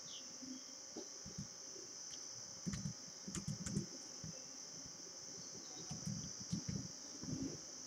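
Faint typing on a computer keyboard: two clusters of soft keystroke knocks and clicks, one about three seconds in and another about six seconds in, over a steady high-pitched hiss.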